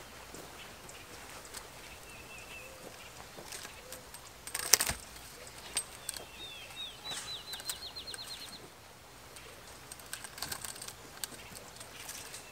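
Plastic deer netting and a PVC pipe gate post being handled, with light rustles and clicks and one sharp knock about five seconds in. A songbird sings a quick run of repeated high notes a little after that, and other birds chirp faintly.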